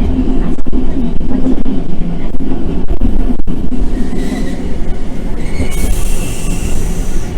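Randen (Keifuku Electric Railroad) tram running along the track, heard from inside the car: a steady low rumble of motor and wheels on rail. For the last couple of seconds a high wheel squeal and hiss join in.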